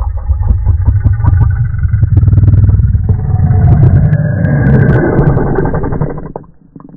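Homemade creature sound effect for a stop-motion monster: a loud, deep, rumbling growl that swells and fades, dropping out briefly near the end before another growl begins.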